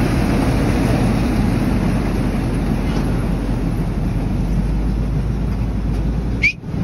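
Corn ear harvester and its tractor running: a steady, loud mechanical din. It cuts off suddenly near the end, and a short high whistle-like note follows.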